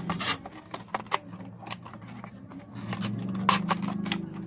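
Clear plastic packaging of a 2.5-inch SSD crackling and clicking as it is handled and opened. A low steady hum swells up twice beneath it.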